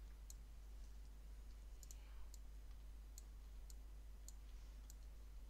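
Faint computer mouse clicks: about eight short, sharp ticks at irregular intervals.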